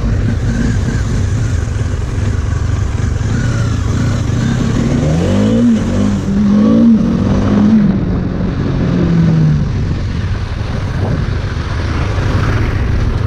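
Motorcycle engine running while riding through traffic, with a steady low rumble. Its note rises and falls as it revs through the middle of the stretch.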